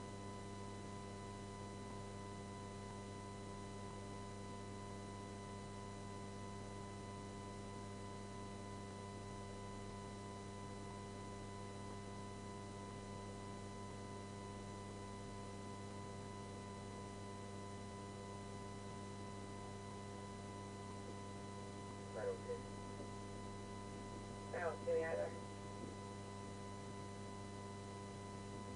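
Steady electrical hum made of several even tones, low in level, with two faint brief sounds about 22 and 25 seconds in.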